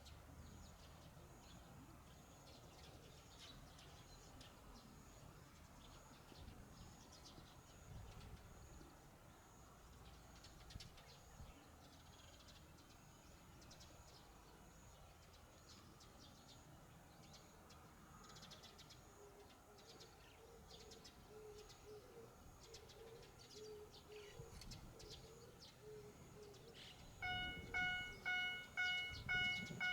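Faint outdoor background with scattered bird chirps. About 27 seconds in, a railway level-crossing warning bell starts ringing: a loud, evenly repeated electronic chime, about two strikes a second, signalling an approaching train.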